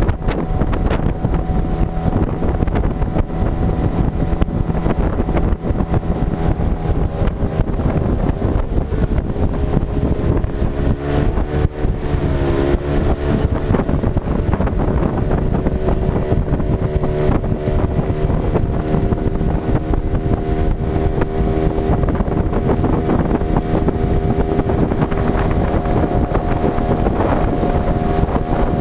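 Yamaha outboard motor driving an aluminium Kazanka boat at speed, with wind on the microphone and water spraying off the hull. The engine note dips and recovers briefly about twelve seconds in.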